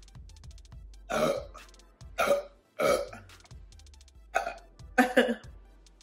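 A woman burping about five times in short, loud bursts, the gas brought up by gulping carbonated Sprite.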